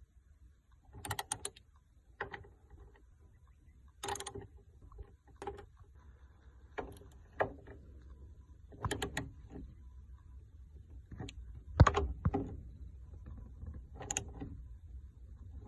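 Hino Profia truck cab door mechanism being worked: a series of separate metallic clicks and clacks at irregular intervals, the sharpest about twelve seconds in.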